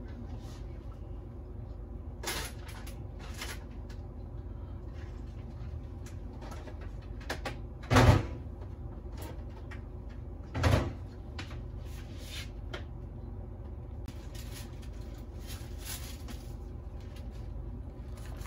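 Kitchen handling sounds over a steady low hum: a few light knocks and clicks, with two louder bumps about eight and eleven seconds in.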